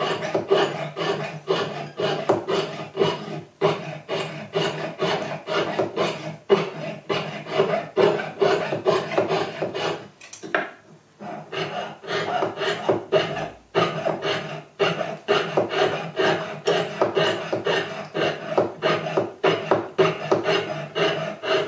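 Jeweller's saw with a coarse 3/0 blade cutting through a cast metal ring more than 3 mm thick, held on a wooden bench pin. It goes in steady back-and-forth strokes, about two to three a second, with a brief pause about ten seconds in.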